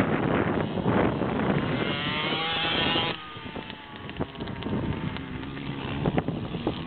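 A child's mini dirt bike engine revving as it rounds a bend, its pitch rising, with wind buffeting the microphone. About three seconds in the sound drops suddenly and the engine carries on more faintly as the bike rides away.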